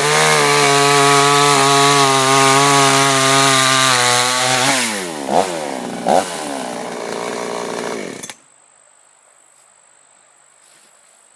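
Chinese clone two-stroke chainsaw running at full throttle through a maple log, its engine note steady. At about five seconds the throttle is released and the engine drops to idle, with two short revs about a second apart. It cuts off suddenly at about eight seconds, leaving a faint, steady, high insect tone.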